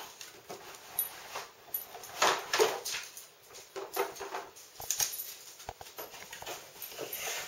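Cardboard box rustling and knocking as a plastic dog puzzle board is pulled out and set down on a tile floor, with dog noises close by. Irregular handling sounds, loudest about two and a half seconds in.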